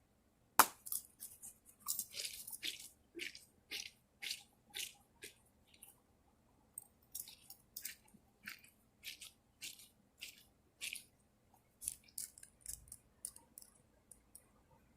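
A series of short crackly clicks and squishes, about one or two a second, from a small plastic fidget toy being squeezed and handled.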